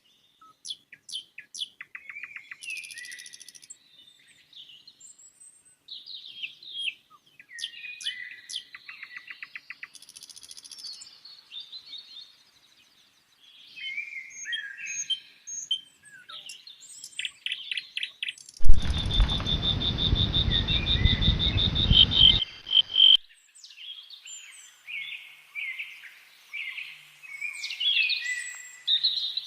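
Several songbirds chirping and singing, with fast rattling trills and short whistled phrases. About two-thirds of the way in, a loud low rumbling noise cuts in for about four seconds and stops abruptly. It is the loudest sound, and a bird keeps singing over it.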